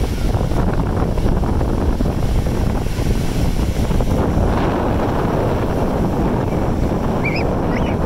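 Ocean surf washing up the beach, with a steady rumble of wind on the microphone.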